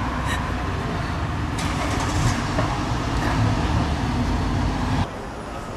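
Steady low rumble of a moving vehicle, with road noise; it drops off abruptly about five seconds in.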